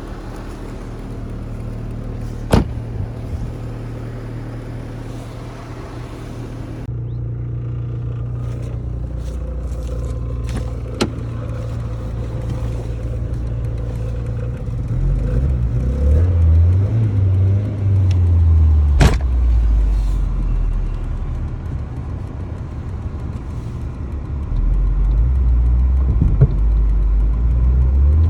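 1999 Volvo S40's 1.8-litre four-cylinder engine running after a cold start in freezing weather, an engine that barely started and runs badly after sitting and having parts taken from it. It holds a steady low idle, then its speed rises twice, from about halfway and again near the end, with a few sharp clicks along the way.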